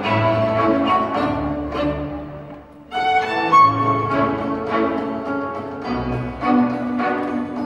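Orchestral music led by bowed strings. It fades away about two and a half seconds in and starts again abruptly just before the three-second mark.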